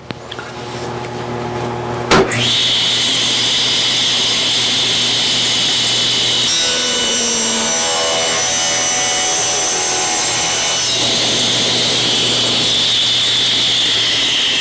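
Power saw ripping a wooden board to width: the motor comes up over the first two seconds, there is a sharp knock, then it runs steadily. The pitch changes in the middle stretch while the blade is in the wood.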